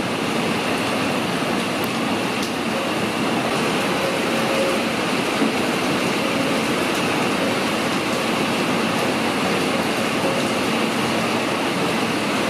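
Heavy rain pouring steadily onto paving, lawn and puddles: a dense, even hiss that does not let up.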